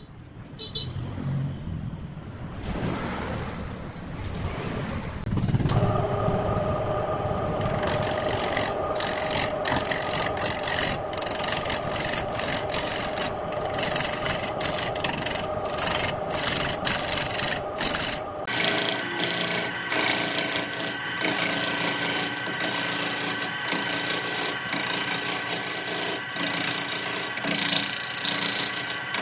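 Wood lathe spinning a large log blank while a turning tool cuts into it, a rough, continuous scraping and tearing of wood broken by many brief gaps as the tool bites and lifts, over the steady whine of the lathe's motor. The motor whine comes in about five seconds in, and about two-thirds through it shifts to a higher pitch.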